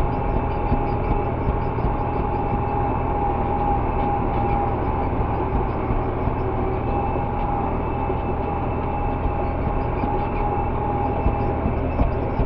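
Farm tractor engine running steadily while the tractor drives along, heard from inside the cab, with a steady whine over the engine noise.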